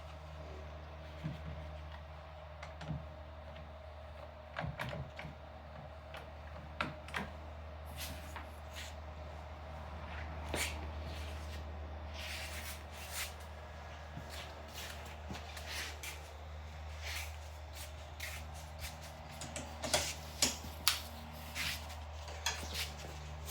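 Scattered light clicks, taps and knocks of hardware being handled during the CNC machine and table stow-away, over a steady low hum; a run of sharper knocks comes near the end.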